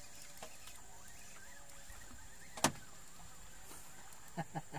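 Steady high-pitched drone of insects in the background, with one sharp click about two and a half seconds in and a few soft knocks near the end.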